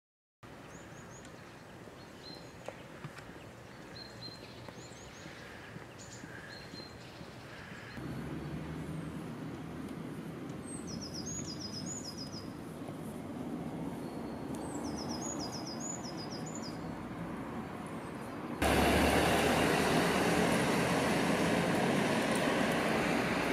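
Outdoor ambience: birds chirp and trill repeatedly over a steady background hum of distant traffic. About eighteen seconds in, a much louder rushing noise takes over.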